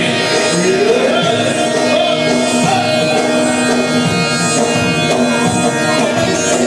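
Live band music played on two electronic keyboards: a gliding, ornamented lead melody over a steady accompaniment.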